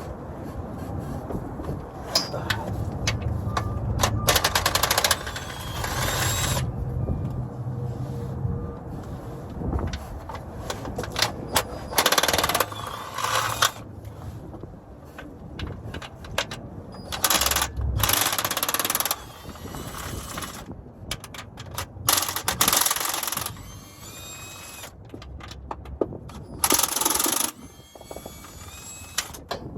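Impact wrench hammering in short bursts of about a second, roughly seven times, loosening transmission bolts, with wind rumbling on the microphone between bursts.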